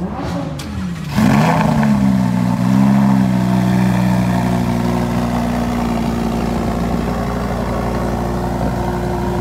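Lamborghini Huracán's V10 engine revs up sharply about a second in, its pitch swinging briefly, then settles into a steady idle.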